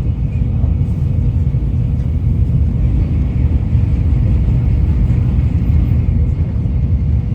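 Steady low rumble of a Tokaido Shinkansen train running, heard inside the passenger car, with a faint steady hum above it.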